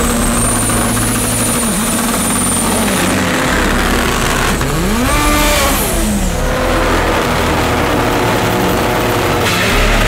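Turbocharged Honda Civic drag-race engines running and revving, with a sweep up and back down in pitch about five seconds in and a high whine that stops about three seconds in.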